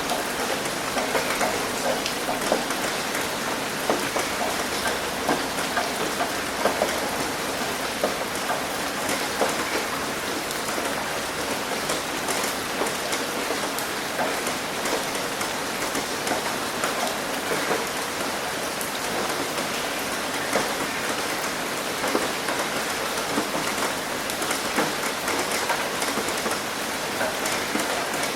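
Steady rain falling on a surface, a constant hiss dotted with many individual drops ticking and pattering close by.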